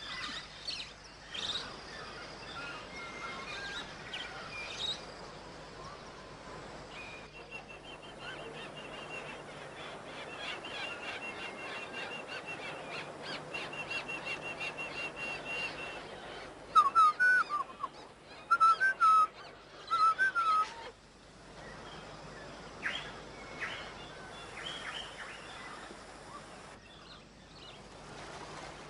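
Rainforest ambience full of bird calls: a rapid, even trill through the middle, then several loud, sharp whistled calls that sweep upward, the loudest sounds, clustered in the second half.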